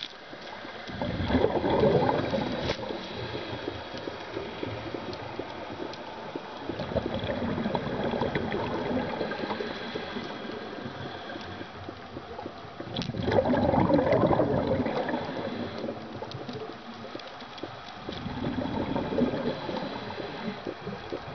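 Scuba diver breathing through a regulator underwater: four gurgling bursts of exhaled bubbles, about every five to six seconds, with quieter hiss and small clicks between them.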